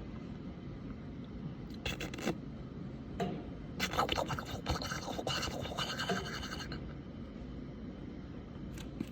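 Scratchy rubbing noises in a few bursts: a short one about two seconds in, and a longer, rasping stretch from about four seconds in lasting nearly three seconds.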